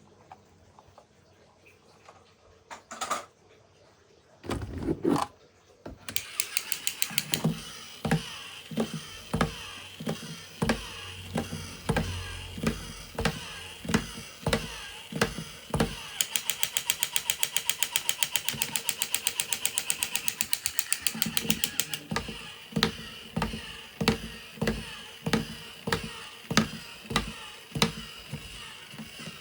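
A small toy mechanism running: a fast, steady rattle of plastic gears with a louder click about every two-thirds of a second. It starts about six seconds in, after a few isolated clicks, and runs densest for a few seconds in the middle.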